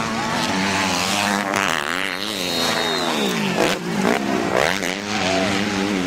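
Motocross bike engine revving hard, its pitch swinging down and up several times with the throttle as it works through a corner and over a jump.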